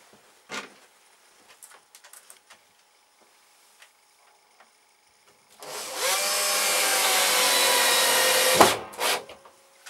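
Power drill running for about three seconds while the alarm box is being fixed up, starting a little past halfway with a brief rise in pitch as it spins up and stopping abruptly, after a few small handling clicks.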